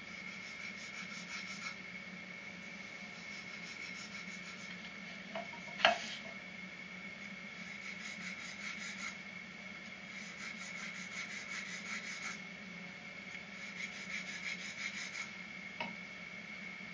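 Rasping scrape of a long rod reamer worked back and forth inside a shakuhachi's bamboo bore, in spells of a second or two, shaving the bore. A single sharp knock about six seconds in. Heard through a television's speaker over a faint steady hum.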